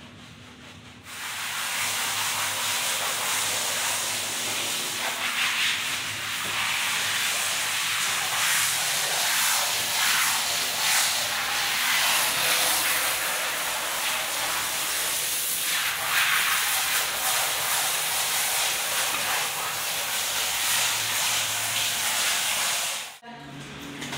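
Handheld shower head spraying water onto a dog's soapy coat, rinsing out the shampoo: a steady hiss that starts about a second in and cuts off suddenly near the end.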